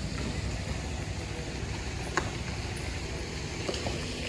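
A vehicle's engine running with a steady low rumble, and a single click about two seconds in.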